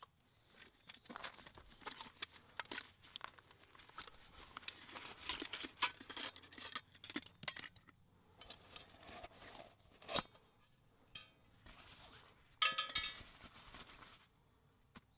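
Camp gear being handled: a fabric stuff sack rustling, with clinks as a tin-can hobo stove and a metal cup are set down. There is a sharp click about ten seconds in and a ringing metallic clank near the end.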